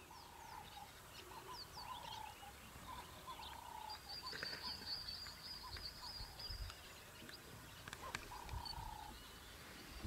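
Wild birds calling faintly: many short high chirps, a trill lasting a few seconds near the middle, and a run of short, even whistled notes repeated every second or so.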